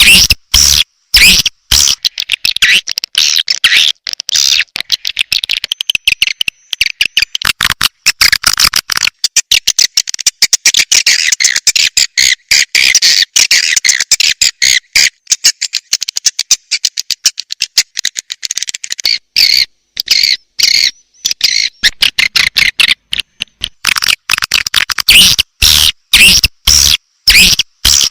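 Swiftlet call-sound recording: a dense, fast chattering of high chirps and twitters with short breaks, the lure call played to draw swiftlets into a nesting house.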